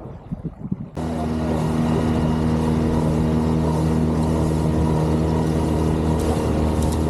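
Outboard motor on a small inflatable boat running steadily under way, with spray and wind hiss over it. It cuts in abruptly about a second in, after faint water lapping.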